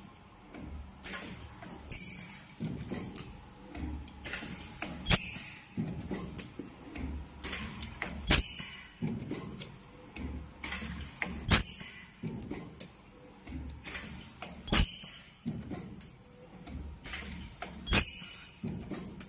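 Automatic rotary-table ultrasonic plastic welding machine cycling on ABS caps. About every three seconds there is a sharp clack with a short burst of high air hiss, and lighter clicks and knocks from the indexing table and pneumatic gripper fall in between.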